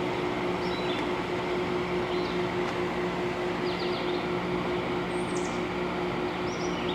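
General Electric ADEL50LRL2 dehumidifier running steadily: a constant rush of fan air with a low steady hum, so quiet that it is hard to tell whether the compressor is on.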